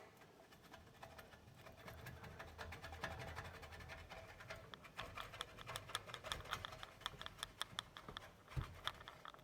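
Faint, rapid clicking of a thin ratchet wrench backing out the rear exhaust bracket bolt on a Harley-Davidson Road Glide, the clicks coming thickest about halfway through.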